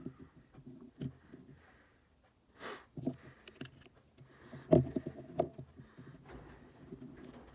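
Scattered small clicks and knocks of an iPhone 6S being handled and pried open at its screen edge, with a short rustle about two and a half seconds in and two louder knocks near the middle.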